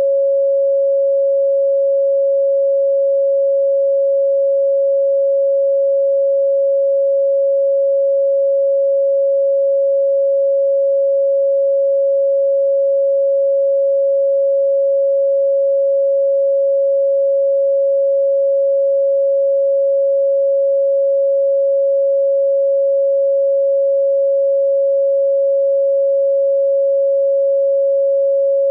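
Synthesised pure sine tone at about 552 Hz, the 551.994 Hz 'healing frequency' listed for Bai Qian root, held perfectly steady and loud. A much fainter high steady tone sits above it.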